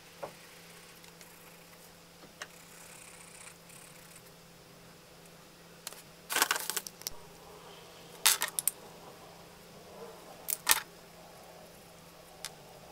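Drawing tools handled on a desk: a pencil set down and a plastic marker picked up and uncapped, heard as three short clusters of sharp clicks and clatters a couple of seconds apart, the first about halfway through. A faint steady hum runs underneath.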